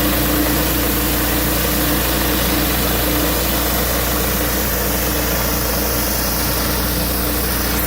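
Pressure washer engine running steadily at constant speed, with an even hiss over its hum.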